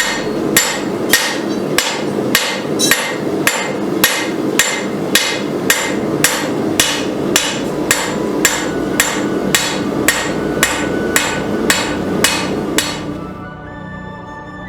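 Hammer blows on hot 5160 spring steel over an anvil, a steady rhythm of about two strikes a second, drawing out the blade's clip point. The hammering stops about 13 seconds in, and background music with held notes comes in.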